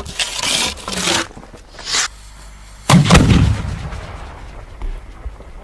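Fireworks going off: a rushing hiss in the first second, a shorter one at about two seconds, then a loud sharp bang about three seconds in that rumbles away over a second or so, and a small pop near the end.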